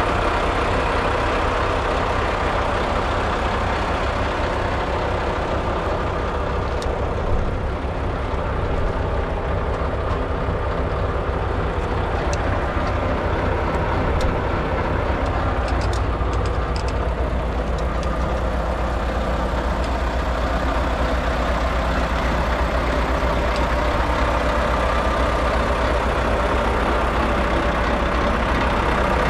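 2015 Mack CHU613 truck tractor's heavy diesel engine idling steadily, with a few faint clicks.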